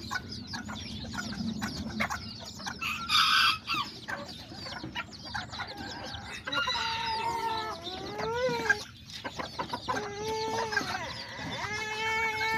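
Small kikiriki bantam roosters crowing three times in the second half, high-pitched, over a flock of chickens and young chicks peeping and clucking.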